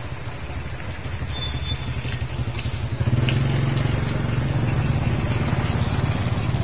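A small engine running steadily with a low, rapidly pulsing drone that grows louder about three seconds in. One sharp click about two and a half seconds in, as hand pruning shears snip through a longan stem.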